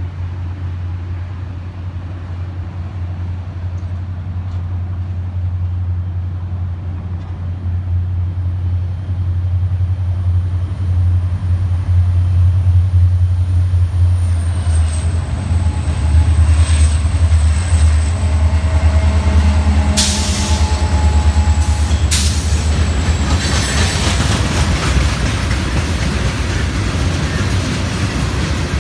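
Florida East Coast Railway diesel freight train approaching and passing close by. A deep engine rumble grows louder over the first half, with two sharp metallic bangs a couple of seconds apart past the middle. Loaded hopper cars then roll by with a steady rattle of wheels on rail.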